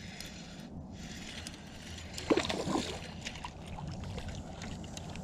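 Spinning reel being cranked while playing a hooked fish from a kayak, with small ticks of the reel and rod handling over water lapping at the hull. A brief louder sound about two and a half seconds in.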